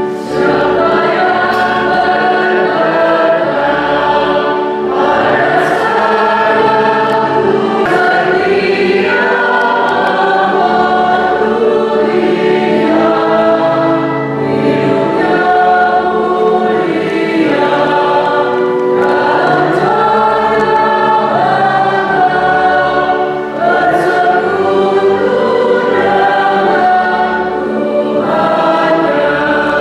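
Church choir singing a hymn over a steady, sustained instrumental accompaniment, the closing hymn after the final blessing of the Mass.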